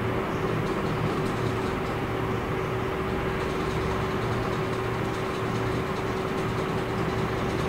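A steady machine hum with one unchanging tone running under it, like a motor or fan.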